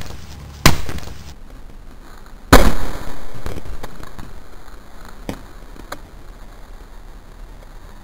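Sharp bangs: one just under a second in, then a louder one about two and a half seconds in that fades slowly, followed by a few fainter knocks.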